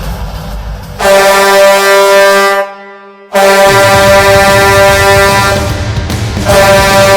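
Lehigh Valley Phantoms' arena goal horn, a deep air horn. It cuts in about a second in with a blast of about a second and a half, falls silent briefly, then blasts again at length to the end, swelling once more near the end.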